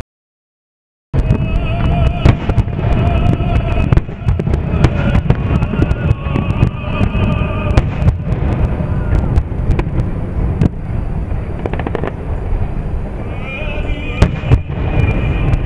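Aerial fireworks shells bursting in a rapid string of sharp cracks and low booms, over music played for the synchronized show. It starts after about a second of dead silence.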